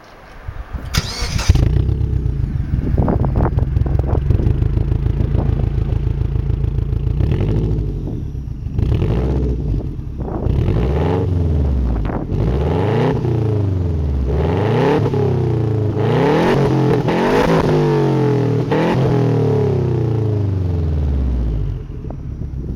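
Engine exhaust through a Ganador Racing Titanium muffler with its silencer insert removed. The engine starts about a second in, idles steadily, then is revved repeatedly in quick throttle blips that rise and fall from about eight seconds in. It settles back to idle and is shut off near the end.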